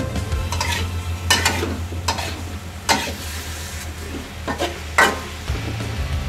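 A metal spatula scrapes and turns pineapple and pork in a metal wok, making about seven sharp scrapes against the pan, the loudest two near the middle and end. Under the scrapes the food sizzles steadily in the oil.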